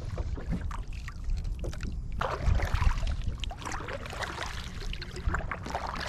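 Double-bladed kayak paddle strokes, the blades dipping and splashing in the water, busier from about two seconds in, with water running off the raised blade. A low wind rumble on the microphone lies underneath.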